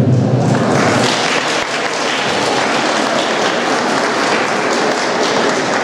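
Audience applauding: dense, steady clapping that builds up about half a second in and keeps going.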